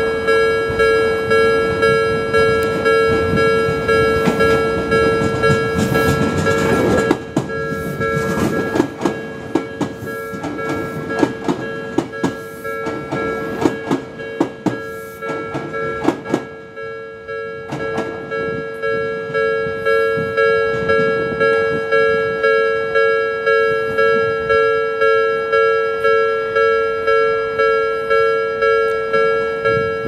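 Japanese railway level-crossing alarm ringing its repeated electronic bell tone, about one and a half strokes a second. An Odakyu Line train passes over the crossing from about seven seconds in until about sixteen seconds, its wheels clacking over rail joints.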